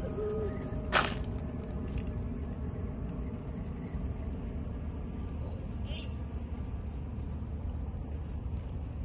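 Crickets trilling steadily at a high pitch over a constant low rumble, with one sharp click about a second in.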